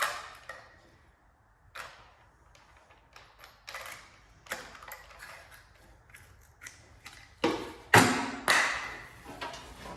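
Scattered metallic clicks, taps and clinks of a power tool's blade being changed by hand, with a few louder knocks about three quarters of the way through.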